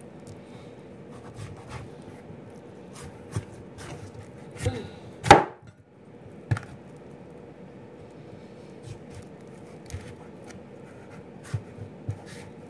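Large kitchen knife cutting through raw pumpkin, with irregular taps of the blade against the cutting board and one loud knock about five seconds in, over a faint steady hum.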